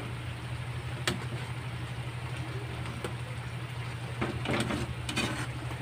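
A ladle stirring a thick curry in a wok, with one sharp knock of the ladle against the pan about a second in and more scraping and clatter near the end, over a steady low hum.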